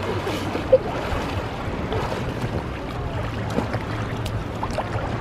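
Shallow sea water splashing and lapping around people moving on an inflatable ring, with wind noise on the microphone: a steady wash with one brief sharper splash about three-quarters of a second in.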